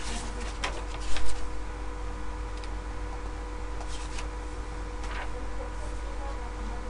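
Steady electrical hum and hiss, with a few scattered short clicks and knocks. The loudest is a pair of knocks about a second in.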